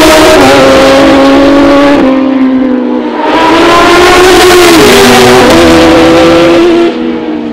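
Racing motorcycles passing close at full throttle, one after another: a loud engine note that steps down in pitch, a short lull about two seconds in, then the next bike going past, the sound dropping away near the end.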